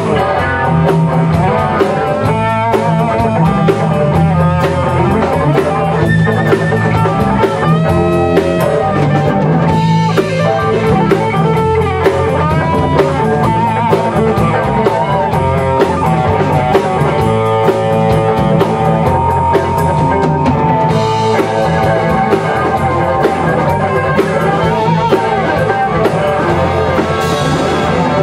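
Rock band playing live without singing: electric guitars, bass guitar and drum kit, with a lead guitar line with bending notes running over the rhythm.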